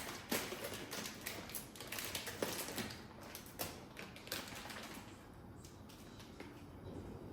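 Irregular light taps and clicks of kitchen items being handled, busiest in the first five seconds and sparser near the end.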